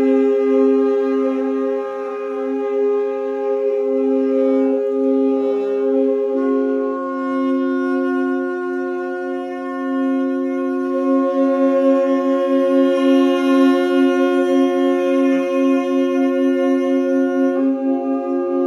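Quartet of tenor saxophones holding long, steady overlapping notes as a drone chord. About a third of the way in one voice steps to a new pitch and another shifts near the end, and in the second half the lowest note wavers with a slow pulsing beat.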